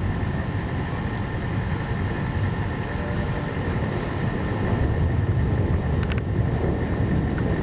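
Thunderstorm: a steady low rumble with no distinct thunderclap, and a couple of faint clicks about six seconds in.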